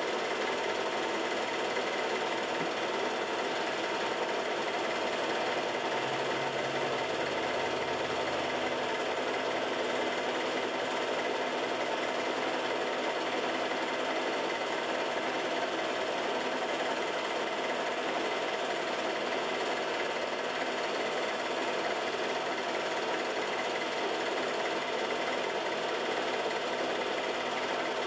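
A home-movie film projector running steadily, its mechanism making an even, unbroken mechanical noise.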